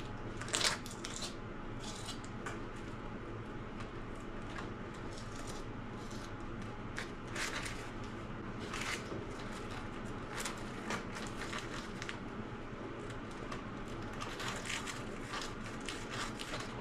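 Irregular scrapes, crackles and clicks of an electric hot glue gun and a plastic brush handle spreading hot glue thin over mesh drywall tape on the back of a carpet, the loudest about half a second in.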